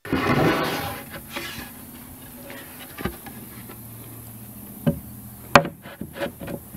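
A power driver buzzes for about a second and a half, driving a screw into a wooden board. A low steady hum follows, with a few sharp knocks of wood, the loudest a little past halfway.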